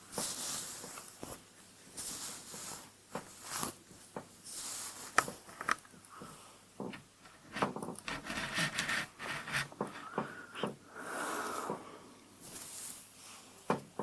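ASMR hair sounds: hair brushed and handled right against the microphone, a busy run of sharp crackles, scrapes and rubs. A salon chair creaks briefly near the end.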